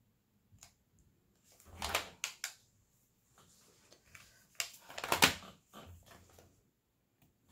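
Small plastic clicks and rattling as diamond-painting resin drills are handled in a plastic tray with a drill pen and pressed onto the canvas. Two dense clusters of clicking come about two seconds in and again around five seconds, with a few single soft ticks between them.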